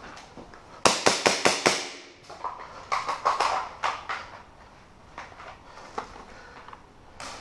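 Airsoft guns firing indoors: a quick string of about six sharp shots a little under a second in, then more scattered shots, with one last sharp shot near the end.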